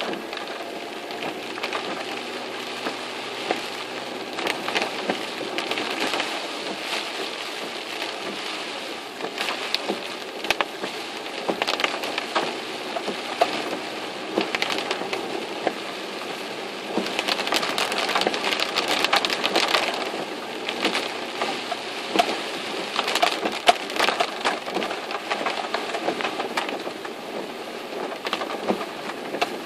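Heavy rain pelting a moving car, heard from inside: a dense, continuous patter of drops with many sharper hits, growing louder in spells a little past halfway and again near the end.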